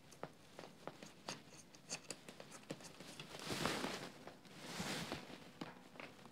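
Faint handling of a plastic handguard flag as it is positioned on its mounting bar: scattered small clicks and taps, with two soft scraping rustles about three and a half and five seconds in.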